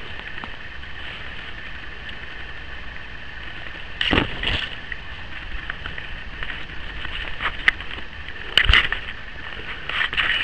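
Scuffing and rustling of foliage and clothing against a handheld camera as an airsoft player moves through woodland cover, over a steady hiss, with a few short sharp clicks.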